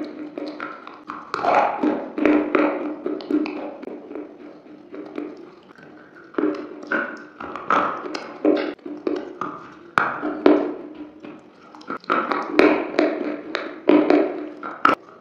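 Slate being bitten and chewed, with sharp, crackling crunches that come in clusters and a quieter stretch of softer chewing partway through.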